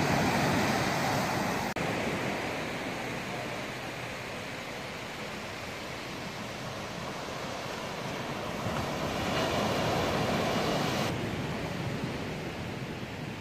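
Small waves breaking and washing up a sandy beach: a steady rush of surf that swells and eases, breaking off abruptly a couple of times.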